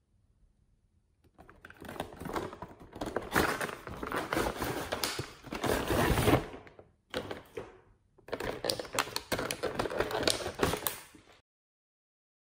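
Crackling, clattering handling of a boxed plastic toy set in its moulded plastic tray, in two long stretches with a short break about seven seconds in, cutting to silence near the end.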